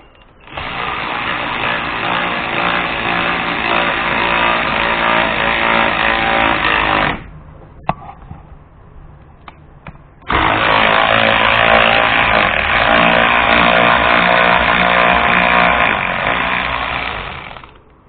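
Hypertough 3/8-inch cordless electric ratchet running under load as it drives a lag bolt into wood: two long, steady runs of about seven seconds each with a pause between, and a sharp click in the pause.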